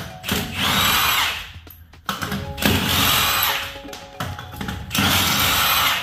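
Power tool spinning truck lug nuts in three bursts of a second or two each, with background music underneath.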